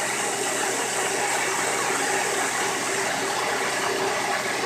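CNC milling machine running an automatic cutting program: a steady hiss from the coolant air mist sprayed at the cutter, with faint steady machine tones underneath.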